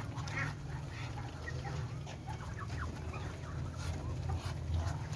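A flock of domestic chickens clucking, with many short overlapping calls, over a steady low hum.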